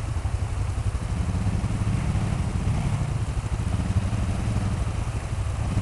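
ATV engine running steadily at low revs as the quad crawls through a shallow stream, over a constant rush of water.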